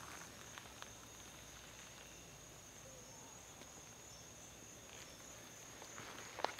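Faint, steady high-pitched insect chorus, with a few soft footsteps on sandy ground in the first second and a sharper step near the end.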